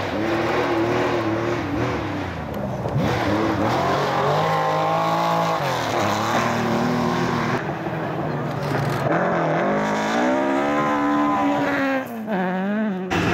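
Historic rally cars at full throttle on a gravel stage: a Porsche 911 engine revving hard, its pitch rising and dropping several times through gear changes, then after a cut near the end a Ford Escort Mk2 accelerating.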